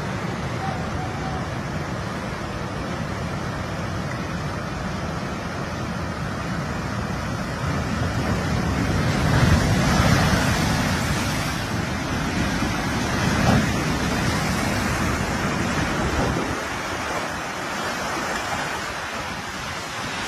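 Tsunami floodwater rushing through a street and waves breaking over a seawall, a continuous heavy wash of water with wind rumbling on the microphone. The water grows loudest around ten seconds in as a wave crashes over the wall.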